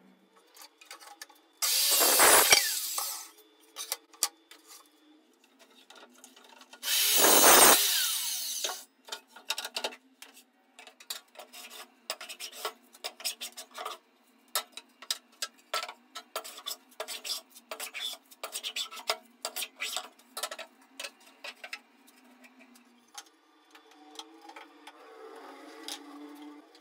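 A power saw cutting through pine board twice, each cut lasting about a second and a half. Then a long run of quick rasping strokes of a hand plane shaving the edge of a pine board, with softer scraping near the end.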